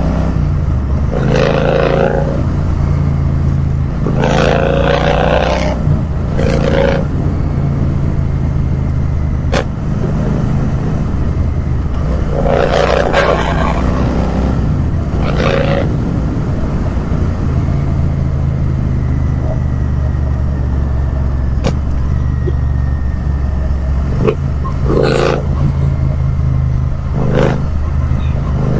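Royal Enfield 650 parallel-twin motorcycle engine running with a steady low exhaust note that shifts pitch a few times, broken by several brief louder bursts.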